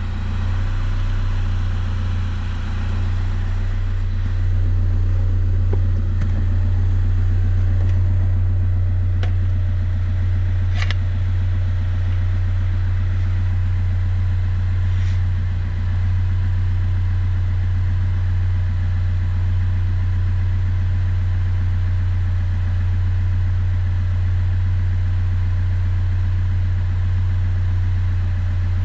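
VW Passat B6 TDI diesel engine idling steadily while it warms up, with a few short clicks in the middle. It is running after a heater core replacement so the coolant can circulate and the system can be checked for leaks.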